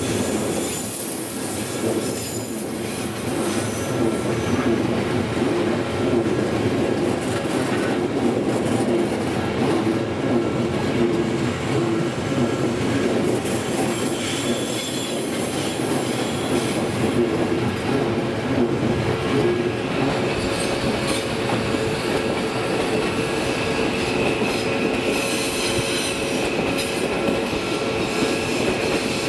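Odakyu limited express trains running past a level crossing, with wheels rolling and squealing on the rails and a steady rumble throughout; a higher ringing tone joins about two-thirds of the way in.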